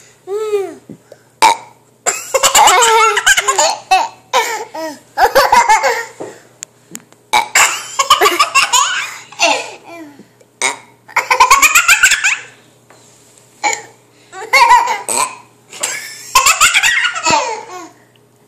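Hysterical laughter in repeated fits of a second or two each, with burping among them.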